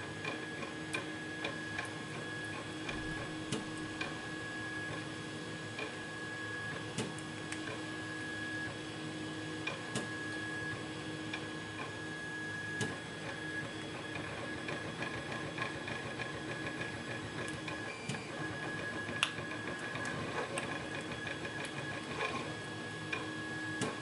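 Small, irregular metallic clicks and scrapes of a thin pick-like tool working inside a brass lock cylinder's pin chamber, trying to free a stuck driver pin. A steady electrical hum sits underneath.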